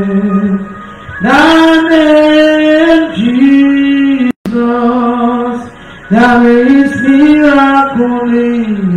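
A woman singing a slow, chant-like worship melody alone, holding long notes with short pauses for breath between phrases. The sound drops out for an instant about four seconds in.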